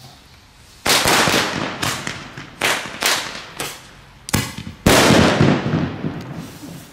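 Geisha Black Mamba L fireworks going off: a quick run of about seven loud bangs over some four seconds, each trailing off briefly, the last one the loudest and longest.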